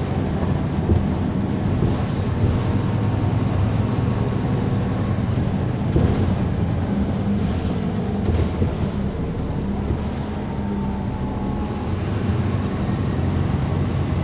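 Caterpillar C13 diesel engine of a NABI transit bus running with a steady low drone, heard from inside the bus, with a few brief knocks or rattles near the middle.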